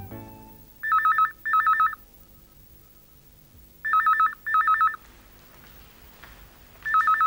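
Landline telephone ringing with an electronic warbling trill: three double rings, about three seconds apart.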